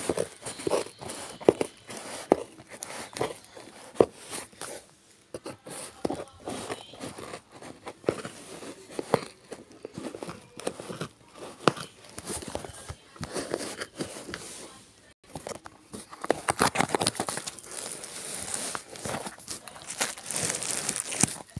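Plastic bags and cloth wrapping being handled close to the microphone: irregular crinkling and rustling with scattered clicks, busiest near the end.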